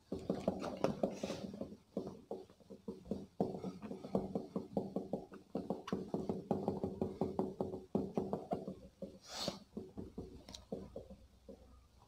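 Whiteboard being wiped clean with a duster: fast, repeated rubbing strokes across the board, with a few short pauses.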